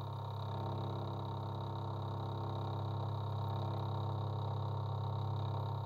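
Bed mill's spindle running steadily with an end mill cutting metal as the table is fed by hand: a steady low hum with a stack of fainter steady tones above it.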